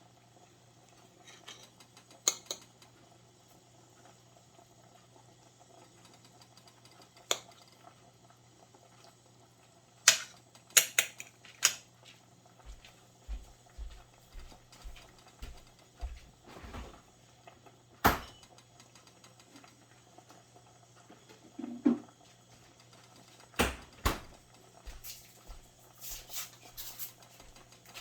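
Scattered clinks and knocks of cutlery against dishes, several in quick succession about ten seconds in and again near the end, over a faint steady low hum.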